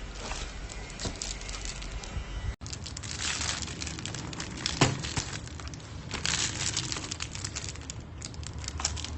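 Packaging crinkling and rustling as it is handled, with many small clicks and one sharper knock about five seconds in.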